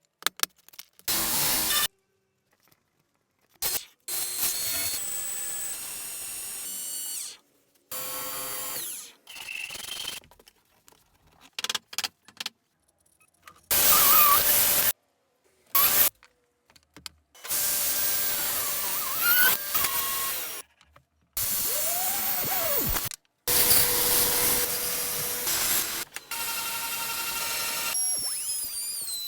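Woodworking tool sounds in a quick succession of short clips, each starting and stopping abruptly with silent gaps between, some of them a power tool running.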